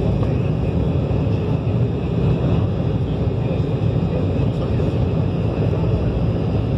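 Embraer 190 jet at takeoff thrust on its takeoff roll, heard inside the cabin over the wing: the GE CF34-10E turbofans run with a steady, deep rumble, mixed with the noise of the wheels rolling on the runway.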